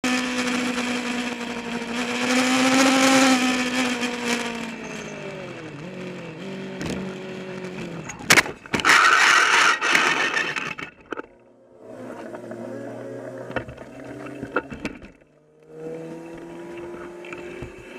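Racing engines at high revs pass by, their pitch falling as they go. About eight seconds in comes a sudden loud crash, followed by roughly two seconds of harsh noise. After two brief dropouts, more engines pass.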